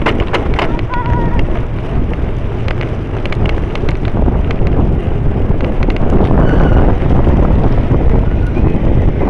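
Wind buffeting the microphone of a camera on a moving bicycle in a pack of cyclo-cross riders, a loud, steady low rumble, with scattered sharp clicks and rattles that are thickest in the first second.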